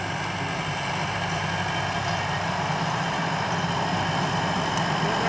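Force Sanman tractor's diesel engine, a Mercedes-Benz design, running steadily under load as it pulls a rotavator through the soil, growing slowly louder as the tractor comes closer.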